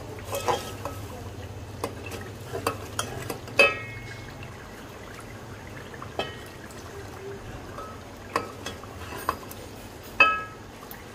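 A metal slotted spoon stirring a thick masala in an aluminium pot, scraping and clinking sharply against the pot's sides about half a dozen times, over a low frying sizzle.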